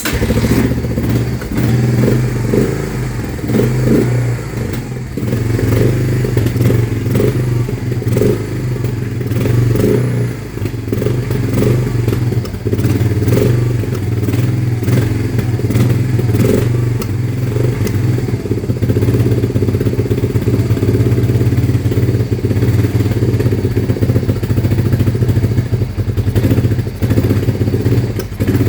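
Honda Fourtrax 300 ATV's single-cylinder four-stroke engine firing on the kickstart and running, unevenly at first and steadier later, with a clattering knock that the owner takes for rod knock.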